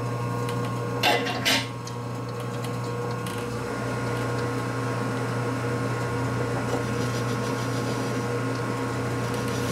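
Metal lathe running with a steady hum while a collar is turned down. Two sharp metallic clacks come about a second in, and a deeper low rumble joins from about three seconds in.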